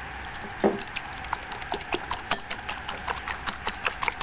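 Coil whisk beating eggs and sugar in a glass bowl, its wire coil clicking and tapping against the glass in a quick, steady run of several clicks a second.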